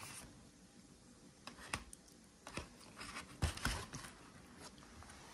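A table knife working at a foil-baked trout's head, giving a few light clicks and taps against the fish and foil. The loudest cluster comes about three and a half seconds in.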